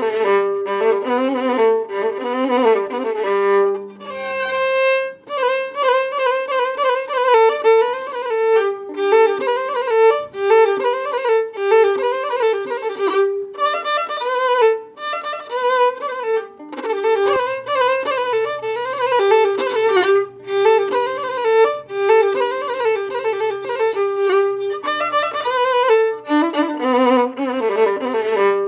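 Background music: a violin playing a fast, ornamented melody, with short breaks between phrases.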